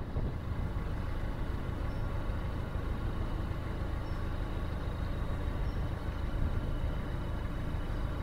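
Narrowboat's diesel engine running steadily, a continuous low rumble.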